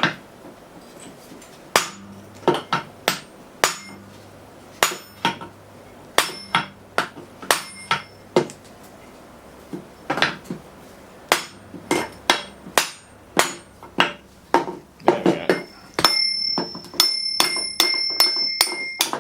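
Hammer blows on the steel shaft of a Sanden TRS105 scroll AC compressor, beating the clutch parts off. The strikes come at an irregular pace and quicken near the end, where the metal rings with a steady high tone.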